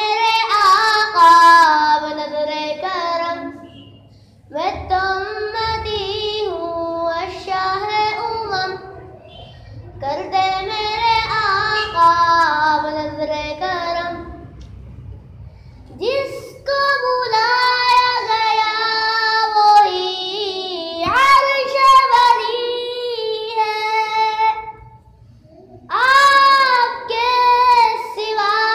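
A single high voice singing an Urdu naat unaccompanied, in long melismatic phrases of a few seconds each with short breaks for breath between them.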